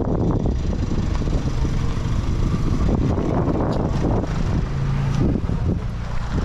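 Wind rumbling on the microphone over a car engine idling, with a steady low hum from the engine showing most clearly near the end.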